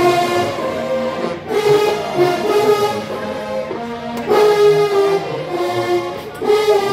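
Marching band brass section with sousaphones playing a tune in held, loud notes.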